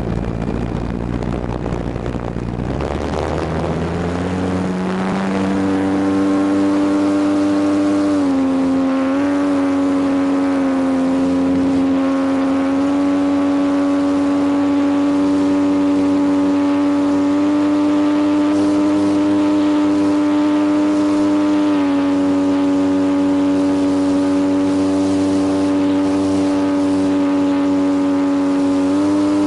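Electric motor and propeller of an RC T-28 Trojan model plane, heard from a camera mounted on the plane. The whine rises in pitch as the throttle opens for the takeoff run, over a low rumble from rolling across the grass. Once airborne it settles to a steady hum with small shifts in pitch as the throttle changes.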